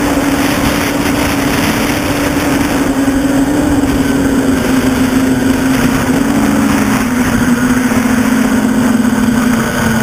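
NL-650 quadcopter's electric motors and propellers humming steadily, heard from its onboard camera with rushing wind and prop-wash noise. The motor pitch drops slightly about six to seven seconds in as the throttle changes.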